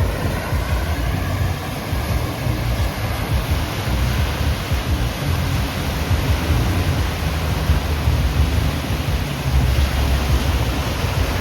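Steady rushing of water, an even unbroken noise with a strong low rumble underneath.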